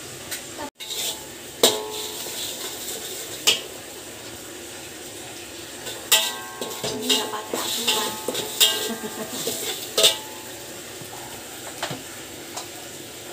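Metal spatula scraping and knocking against a metal wok as egg is scrambled, the wok ringing briefly after the harder strikes. The strikes are scattered, busiest in the second half, over a steady hiss.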